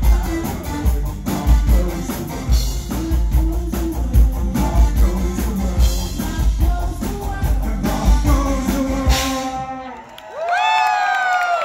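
Live rock band, with lead vocals, electric guitar, keyboards and drum kit, playing the final bars of a song, ending with a cymbal wash about nine seconds in. Then the crowd cheers and whoops.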